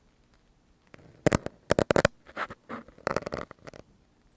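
Large plastic syringe worked right at the microphone, making quick runs of crackling clicks about a second in and again around three seconds in.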